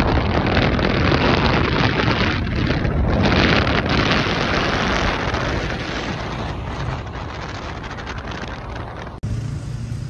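Wind rushing over the microphone with engine and road noise from a moving vehicle: a loud, steady rush that eases a little in the second half and cuts off abruptly near the end.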